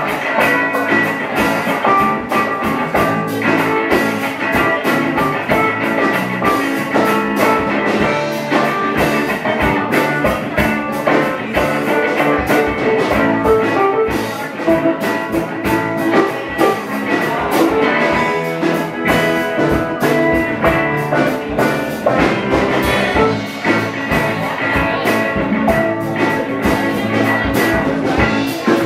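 Live band playing amplified electric guitars over a drum kit beat.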